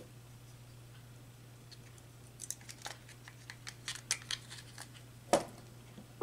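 Plastic parts of a magnetic contactor clicking and rattling as they are handled and fitted back together by hand. The small clicks come in a run from about halfway through, with one louder snap near the end.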